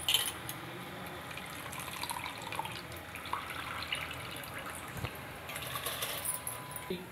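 Rice being poured into a pot of boiling water: steady bubbling and splashing, with small ticks of falling grains and a couple of brief splashy surges.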